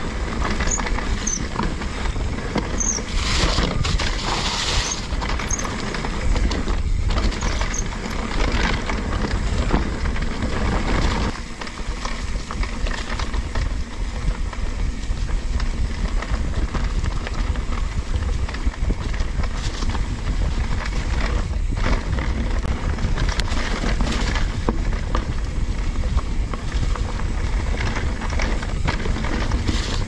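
Mountain bike riding downhill on dirt singletrack covered in dry leaves: tyre noise and rattles from the bike over bumps, under a steady low rumble of wind on the microphone. A few short high squeaks come in the first eight seconds or so.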